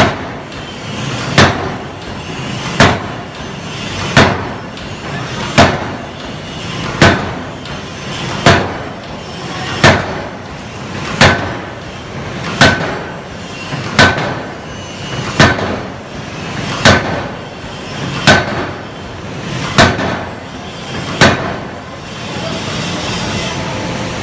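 A hydraulic open-die forging hammer's ram strikes a red-hot steel flange ring on the anvil in steady, evenly spaced blows about 1.4 seconds apart, sixteen in all. The blows stop a few seconds before the end.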